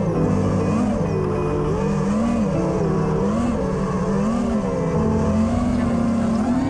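FPV racing quadcopter's brushless motors whining, their pitch swinging up and down about once a second with the throttle.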